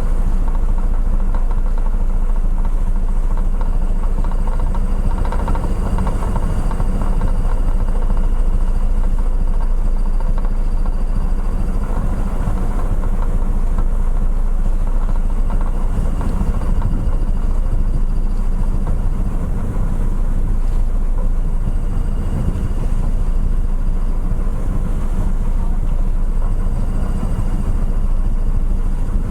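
Steady low drone of a car ferry under way, its engines and hull noise running without change, with a few faint steady high whines above the rumble.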